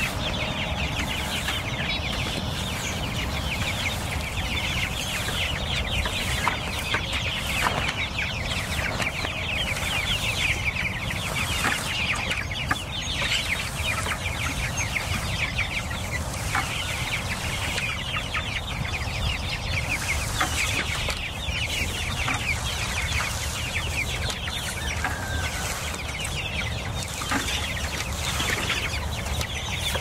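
A flock of meat chickens (broilers) in a movable chicken tractor peeping and clucking together in a steady high chatter of short falling calls, with a few brief knocks now and then.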